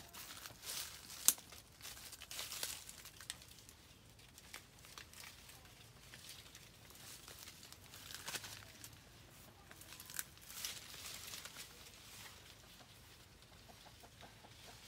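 Leaves and twigs rustling and crackling in short, scattered bursts as someone climbs into a fruit tree, with one sharp snap about a second in.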